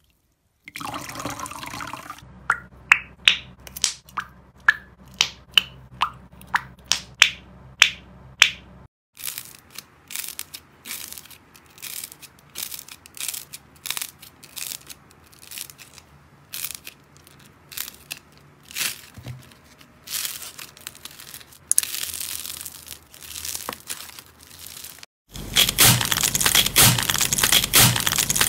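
Hands squeezing slime toys. First a sponge squishes in soapy green liquid with a run of sharp wet pops. Then puffy clay crackles with small clicks as it is kneaded. About three seconds before the end comes a louder, dense crunching as a glitter-coated squishy ball is squeezed.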